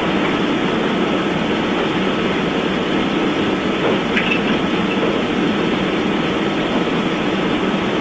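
Steady, even rushing noise with a faint hum and no speech, unchanging throughout.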